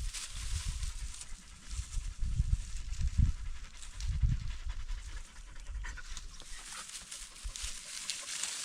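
A dog panting, with irregular low rumbles.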